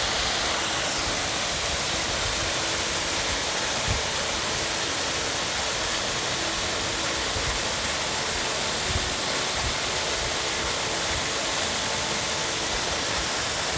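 Waterfall rushing: a steady, even roar of falling water that does not change, with a few faint low thumps.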